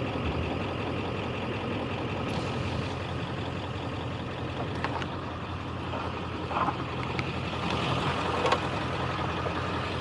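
A vehicle engine idling with a steady low hum, with a few faint clicks and taps partway through.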